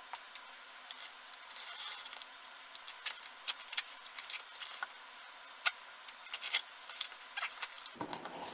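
Scissors slitting the packing tape on a cardboard shipping box: a run of sharp clicks and scratchy scraping. Near the end the cardboard flaps are pushed open.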